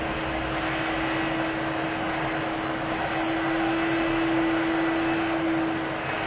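Vacuum cleaner running steadily: an even rushing hiss with a steady motor whine, which gets a little louder about three seconds in.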